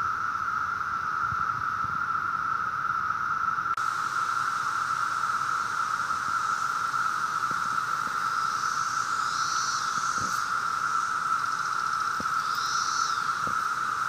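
Chorus of Brood II periodical cicadas, a loud, steady, unbroken high drone.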